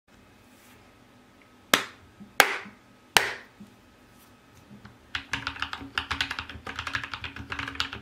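Three sharp, separate clacks with a ringing tail, then, from about five seconds in, rapid typing on an Anne Pro 2 mechanical keyboard.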